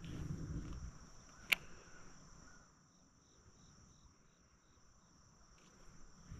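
Steady high-pitched chorus of insects. A single sharp click comes about a second and a half in, and a run of faint high chirps, about three a second, follows in the middle.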